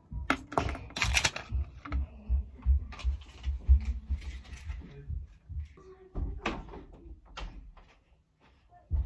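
Close handling noise: a busy run of sharp clicks, knocks and rustles over soft low thuds of footsteps on the floor, thinning out and nearly stopping shortly before one last knock near the end.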